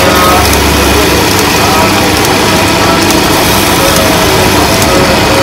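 Motor-driven wood lathe spinning a wooden leg while a hand-held chisel shaves it, a steady rough scraping of the blade on the turning wood.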